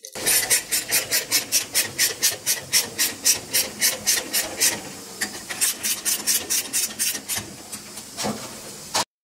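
Hand ratchet clicking rapidly, about four clicks a second, as the ring gear bolts are snugged up on the differential case. The clicks grow fainter after about five seconds and stop suddenly near the end.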